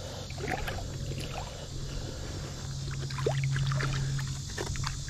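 Shallow river water sloshing and splashing as a gloved hand feels around a submerged cash register, with short scattered splashes. A low steady hum runs underneath and grows stronger in the middle.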